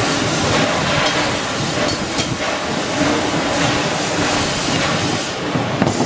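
Steady, loud machinery noise on a wire-rack production floor, with a few faint clinks of metal wire baskets being handled.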